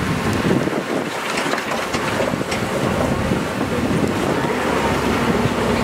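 Open-sided safari truck driving along a rough track: engine and road noise, with wind buffeting the microphone.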